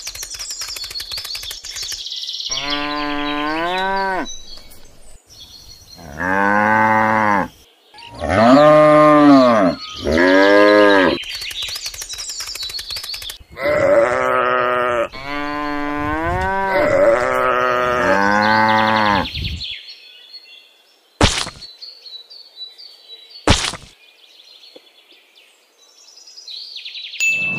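Cows mooing and sheep bleating, about eight drawn-out calls that rise and fall in pitch, followed by two sharp clicks.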